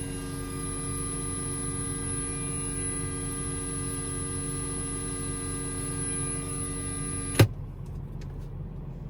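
Buzzing whine from a car stereo's speakers, a steady set of tones carried in through the auxiliary input: ground loop noise of the kind an isolator is meant to remove. About seven seconds in it cuts off with a sharp pop, leaving a low rumble.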